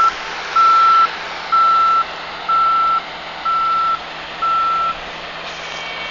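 A combine harvester's backup alarm beeping steadily about once a second, six beeps that stop about five seconds in, over the steady running noise of the New Holland TC56 combine.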